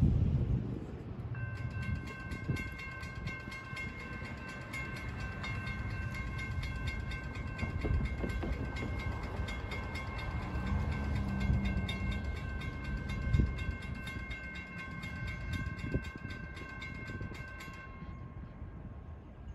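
Railroad grade-crossing warning bell ringing in rapid, even strokes: the crossing has activated for an approaching train. It starts about a second and a half in and stops near the end, over a low rumble of wind and a passing car.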